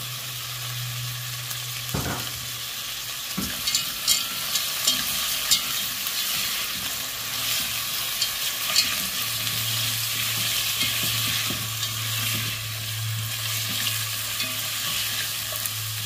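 Frozen peas, carrot and onion sizzling in hot oil in a nonstick pot while being stirred with a silicone spatula, which scrapes and taps against the pan several times in the first half. A low steady hum runs underneath for much of it.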